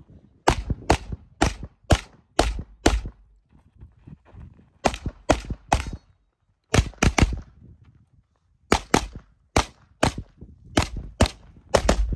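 Handgun fire on a practical shooting range: about twenty sharp shots in quick strings, roughly two a second, broken by short pauses of one to two seconds.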